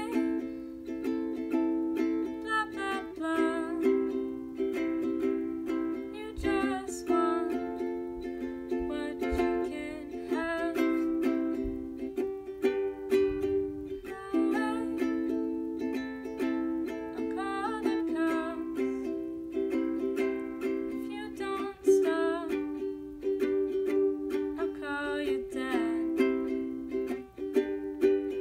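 Ukulele strummed in a steady rhythm, with a young woman singing a soft melody over it.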